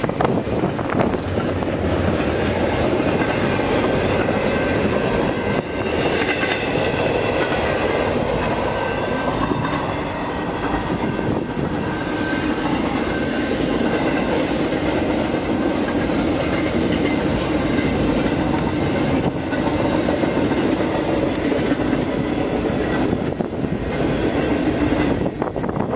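Double-stack container train of well cars rolling past steadily, wheels clattering over the rail joints. A thin high wheel squeal rides on top for several seconds a few seconds in.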